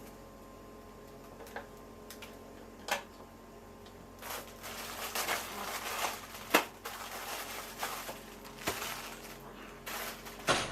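A few scattered sharp clicks, then about six seconds of irregular crinkling and rustling from a plastic instant-noodle packet being handled.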